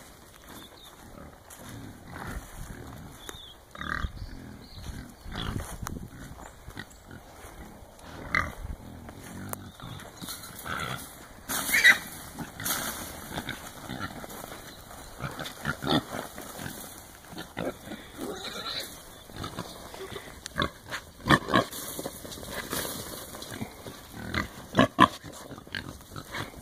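A group of trapped wild hogs making pig calls and moving about inside a wire-panel corral trap, in short irregular bursts. There are several sharp, loud sounds around the middle and near the end.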